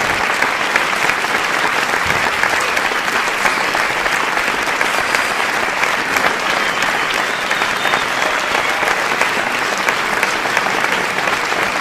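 A large audience applauding: dense, even clapping that holds at a steady level.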